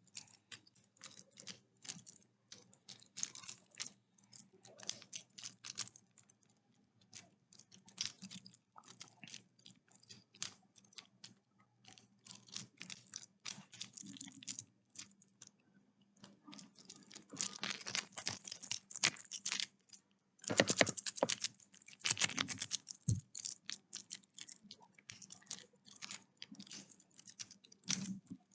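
Infinity cube fidget toy being folded and flipped over and over in the hands: quick irregular clicks and clacks as its hinged blocks snap together, in denser bursts about two-thirds of the way through.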